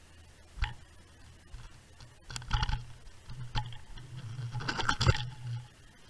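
Knocks and rattles of a fishing rig with an underwater camera bumping along the sandy seabed, heard through the camera housing underwater: a single sharp knock, two short clusters, then a longer rattle near the end.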